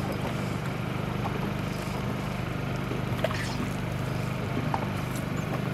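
Steady low hum of an engine running aboard a small boat, with a few faint clicks from a spinning fishing reel being wound.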